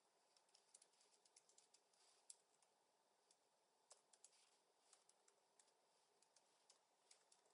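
Near silence with faint, irregular computer keyboard clicks from typing.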